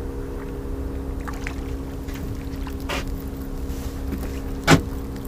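Steady low hum of a small boat's idling engine, with a few light clicks from the rod and tackle and one sharp knock near the end as a mackerel is landed.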